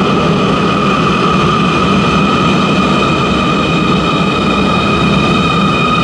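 Siemens C2 U-Bahn train running along a station platform: a steady rumble of wheels on rail under a steady high whine from its electric drive.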